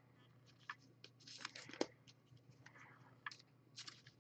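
Faint rustling and light clicks of trading cards being handled and slipped into soft plastic card sleeves, with one sharper tap a little under two seconds in.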